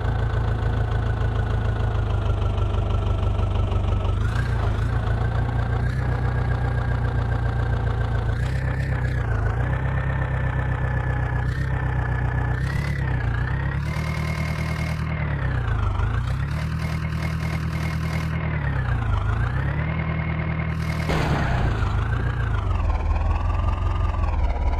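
Heavy diesel engine running steadily, its revs rising and falling several times over the second half.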